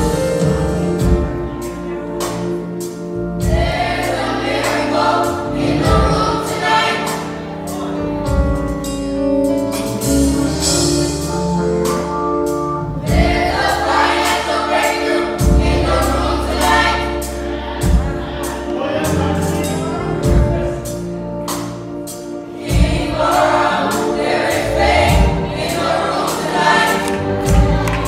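Children's gospel choir singing together, accompanied by a live band with drums and bass.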